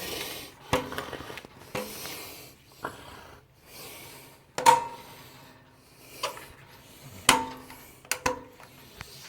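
Stiff push-button speed switch on a vintage box fan being worked by hand: a handful of sharp plastic-and-metal clacks, each with a brief metallic ring, and some rubbing and handling noise in between.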